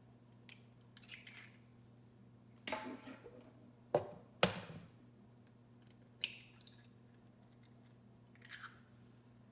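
Two eggs being cracked over a stainless steel mixing bowl: scattered sharp taps and crackles of eggshell, the loudest a sharp click about four and a half seconds in. A faint steady hum runs underneath.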